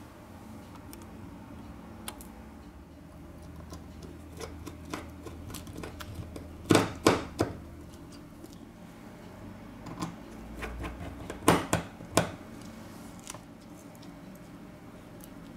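Small metal hand tools clicking and tapping against an iPod touch's metal frame and internal parts during reassembly: scattered light ticks, with a cluster of sharper clicks about halfway through and another a few seconds later, over a low steady hum.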